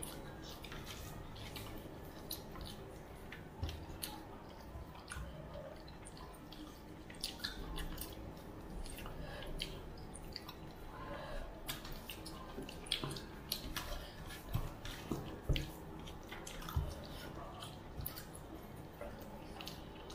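Eating with bare hands from steel plates: wet squishing as fingers mix rice with fish curry, chewing and lip smacking, and scattered light clicks against the plates.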